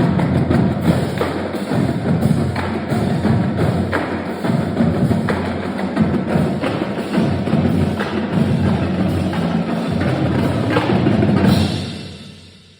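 Marching drumline playing a fast, dense percussion passage with many sharp strikes over low drum hits, ending on a final accented hit near the end and then ringing away.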